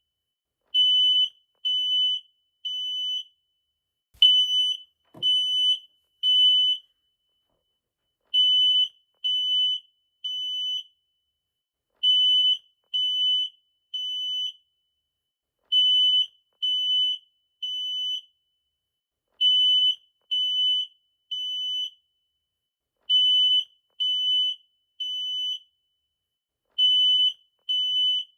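Smoke detector alarm sounding a loud, high-pitched, piercing beep in repeating groups of three with a pause after each group. This is the standard temporal-three pattern that signals fire and evacuation.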